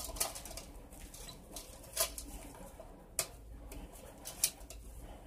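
Light clicks and small rattles from the metal parts of an oil lantern being handled and fitted, with about four sharper clicks spread through.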